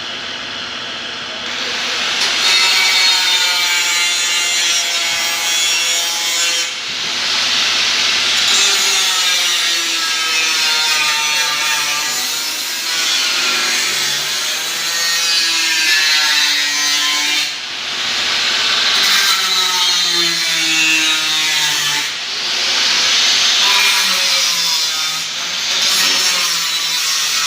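Power tool grinding on sheet-metal car body panels, in long passes whose pitch wavers as the load changes, with short breaks about a third of the way in and twice more later on.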